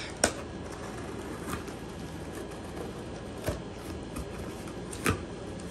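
A large kitchen knife cutting and scraping through packing tape on a cardboard box, with a few sharp taps of the blade on the box, the loudest just after the start and another near the end, over a steady hiss.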